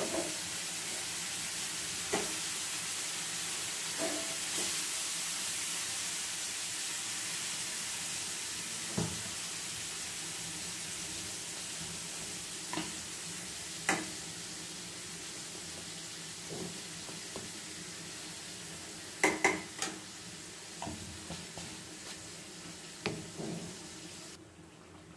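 Food sizzling as it fries in a pan, with a steady hiss and scattered sharp clinks of a utensil against the pan while it is stirred, several in quick succession a little after halfway. The hiss cuts off abruptly near the end.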